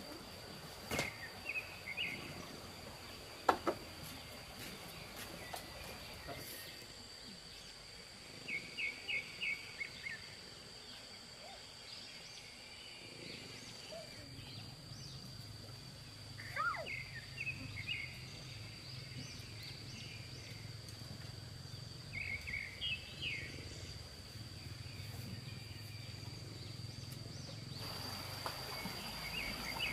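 Birds chirping in short bursts of quick notes, over a steady high-pitched whine. A single sharp knock about three and a half seconds in is the loudest sound, and a low hum runs through the second half.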